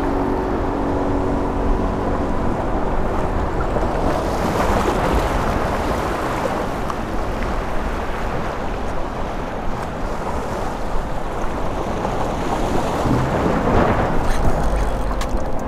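Strong wind buffeting the microphone, with waves surging and washing against the jetty rocks.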